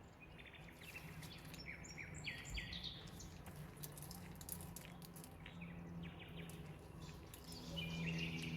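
Faint birds chirping in short calls, a cluster in the first few seconds and another near the end, over a low steady hum.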